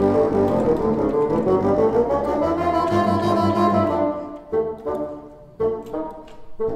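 Bassoon and contrabassoon playing a duet: dense, overlapping sustained notes for about four seconds, then a quieter passage of short detached notes separated by brief gaps.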